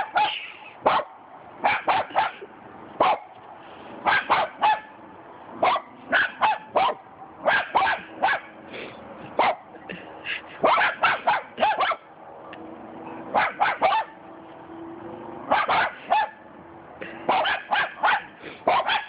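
Small dog barking repeatedly, in quick runs of two to four barks with short pauses between runs.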